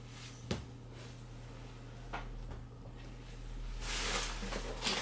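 A thump as the air-locker compressor is set down on a table, a lighter knock about two seconds later, then plastic packaging rustling from about four seconds in.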